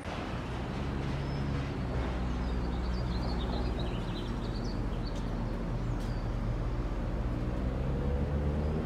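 Steady low hum of a car engine and road noise, with birds chirping a few times partway through.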